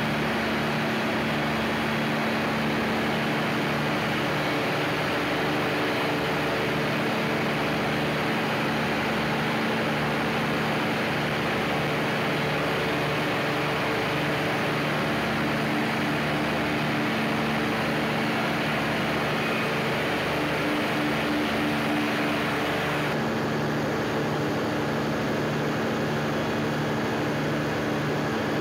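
Large multi-cylinder Perkins diesel engine of a 1250 kVA generator set running steadily at constant speed on test, a deep even drone with a fast regular pulse. The sound turns duller about two-thirds of the way through.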